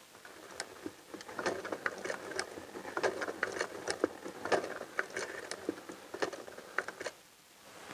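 Hand-cranked octopus automaton running: its mechanism and wire-linked arms make a rapid, uneven run of light clicks and clatter that dies away about seven seconds in.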